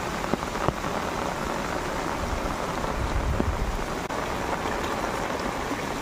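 Rain falling steadily onto a flooded street, a continuous hiss of drops spattering on the standing water. A couple of small clicks come about half a second in.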